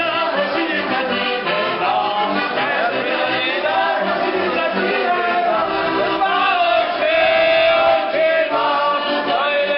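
Heligónka (diatonic button accordion) playing a folk tune while a young man sings loudly along with it.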